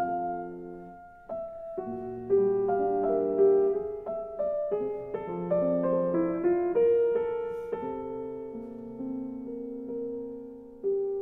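Background piano music: slow chords with a melody over them, notes struck and left to ring.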